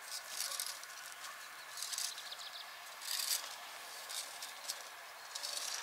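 Quiet outdoor garden ambience with birds chirping in the distance and a few short high rustles.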